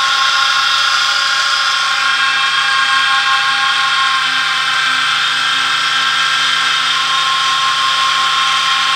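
12 V DC electric motor driving a heavy reduction gearbox, running steadily with a whine made of several tones.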